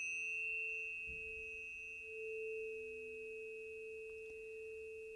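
Planetary tuning forks ringing after being struck, a steady pure tone with a fainter lower tone and a thin high overtone, slowly fading.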